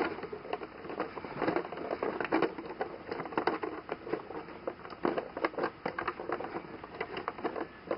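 A clear plastic blister tray crinkling and crackling in quick, irregular bursts as hands work loose the twist ties that hold a toy figure in it.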